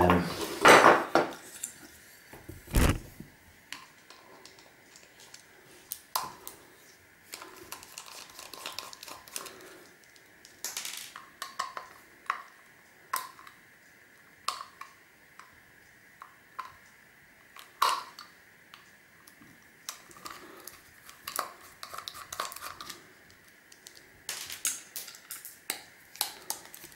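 Small screws being undone from a hard drive's circuit board with a precision screwdriver: scattered light clicks and taps of metal on the drive and the wooden table. There is one heavier knock about three seconds in.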